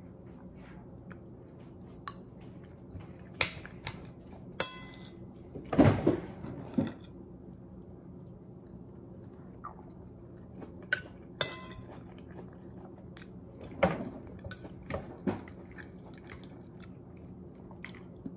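A metal spoon clinking and scraping against a ceramic bowl, a dozen or so separate clinks that ring briefly, with chewing between them. A faint steady hum runs underneath.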